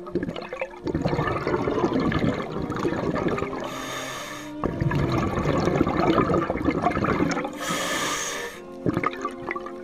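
Scuba diver breathing underwater through a regulator: two long exhalations of bubbling and gurgling, each followed by a hissing inhalation of about a second, near the middle and near the end.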